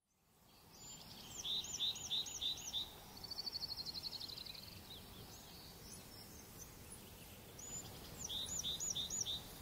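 A songbird singing over a steady hiss of woodland ambience that fades in at the start: a phrase of about five quick, high repeated notes about a second in, a fast trill shortly after, and the five-note phrase again near the end.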